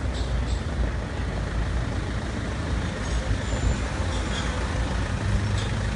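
Steady low rumble of road traffic on a city street, with the engines of a police van and patrol car running close by.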